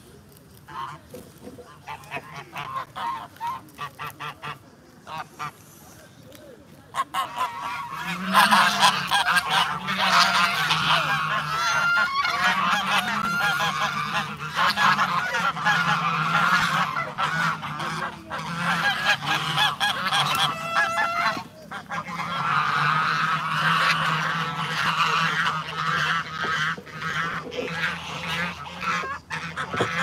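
A flock of domestic geese honking: a few scattered calls at first, then, about a quarter of the way in, a loud, dense chorus of overlapping honks that keeps on with only a brief lull.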